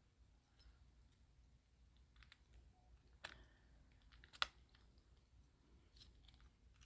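Faint clicks and taps of a key being worked against a clear acrylic practice cross lock, with two sharper clicks about three seconds in and a second later, as the key won't go in.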